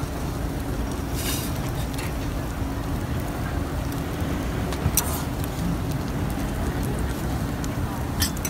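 Metal spatula clicking and scraping on a flat-top griddle a few times (about a second in, around five seconds, and near the end) over a steady low rumble and faint sizzling.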